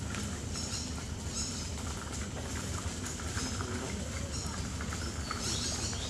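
Mangrove forest ambience: a steady low rumble with scattered small clicks and, four or five times, short high chirps.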